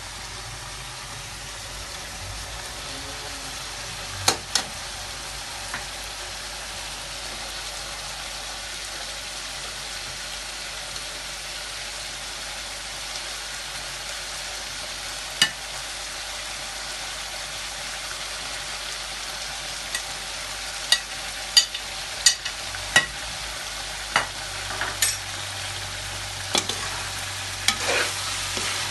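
Chicken jalfrezi frying in a pan with a steady sizzle while it is stirred. A utensil knocks sharply against the pan now and then, a few times early on and then in a quick run of knocks in the last third.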